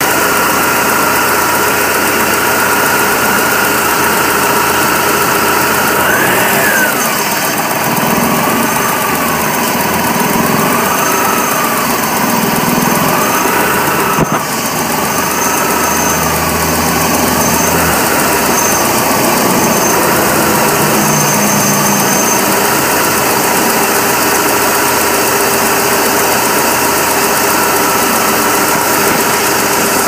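BMW E46 318i M43 1.9-litre four-cylinder engine idling rough, the sign of the intermittent rough-idle fault the owner has not traced. A whine in the engine note jumps up about six seconds in, then rises and falls about every two seconds until past the middle, and runs steady after that.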